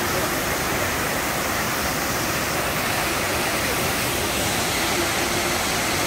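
Waterfall, several streams of water plunging from a cliff into a pool, making a steady, even rush.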